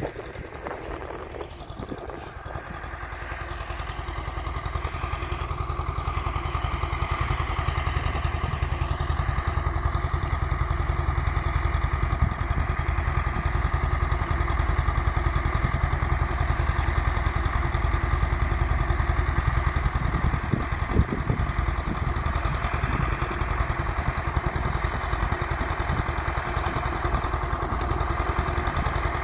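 Tractor engine running steadily as it pulls a potato planter. It grows louder over the first several seconds as the tractor approaches, then holds steady.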